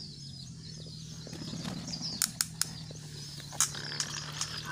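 Many small birds chirping in quick, bending calls over a steady low hum, with a few sharp clicks through the middle.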